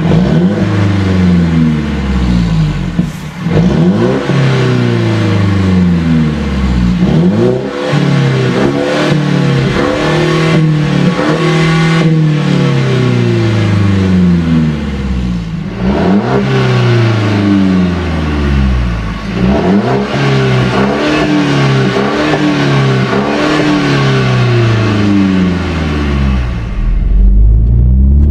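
Mercedes-Benz W205 C300 with an AWE Tuning exhaust, its turbocharged four-cylinder engine revving repeatedly, the pitch climbing and falling back again and again.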